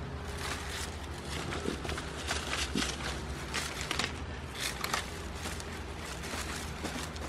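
Goats browsing on bramble leaves: irregular crunching, tearing and rustling of leaves and stems as they bite and chew, busiest around the middle.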